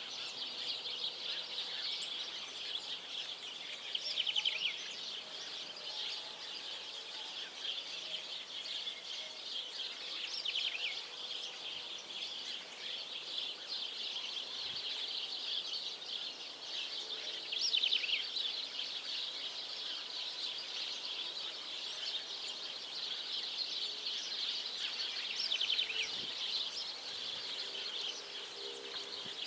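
Steady outdoor chorus of high chirping birds, with a few louder bursts of twittering about 4, 11, 18 and 26 seconds in.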